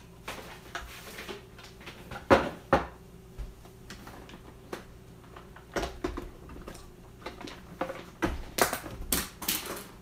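Scattered knocks and clunks of things being handled and set down on a work surface, with faint rustling, as a sewing machine is moved into place: two loud knocks a few seconds in, a couple more around the middle and a quick run of them near the end.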